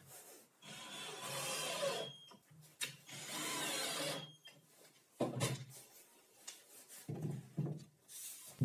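Workshop handling noise of a plywood board being shifted and scraped on the table saw top, with a few sharp knocks and clicks.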